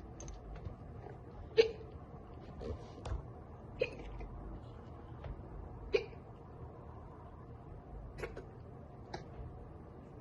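A girl hiccupping repeatedly from drinking soda: short, sharp involuntary hiccups about every two seconds, some fainter than others.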